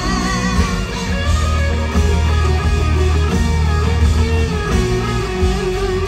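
Live band music with guitar to the fore over a heavy, steady bass.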